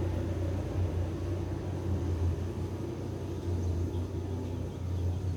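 A steady low rumble with a faint noisy hiss above it.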